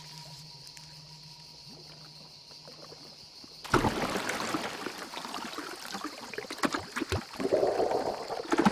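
Archerfish shooting jets of water: splashing and dribbling water starts suddenly about four seconds in, after a quieter stretch with only a faint steady hum.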